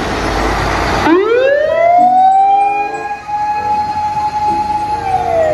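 Fire engine siren winding up about a second in, from a low pitch to a steady high wail, holding, then starting to wind down near the end. Before it comes about a second of loud rushing noise.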